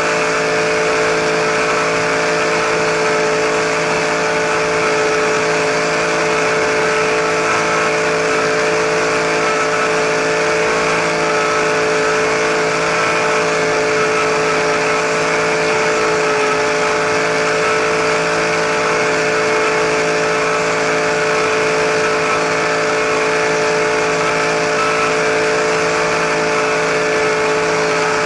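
RC helicopter's motor and rotor running at a steady speed, close up, with an unchanging pitch.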